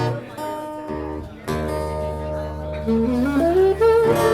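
Live band music: strummed guitar chords over a steady held bass, with a rising run of notes about three seconds in.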